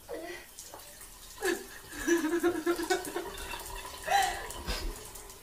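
Wordless vocal sounds: short falling cries, and about two seconds in a wavering, rapidly pulsing voice lasting just over a second.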